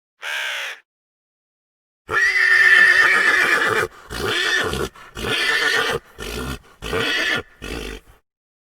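Horse neighing: a long whinny about two seconds in that breaks into a run of five shorter, pulsing calls trailing off, after a brief high call near the start.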